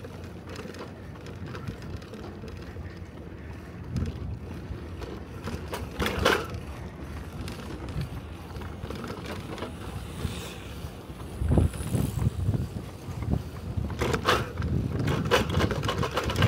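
Bicycle ride over concrete: tyres rolling with a steady low rumble and wind on the microphone, with a few louder knocks and rattles, most of them near the end.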